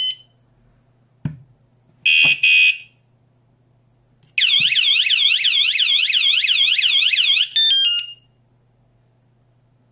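Wireless bicycle vibration alarm unit sounding from its built-in speaker, set off by its remote: a short high beep, a quick double chirp, then about three seconds of loud warbling siren, about four up-and-down sweeps a second, ending in a few falling beeps.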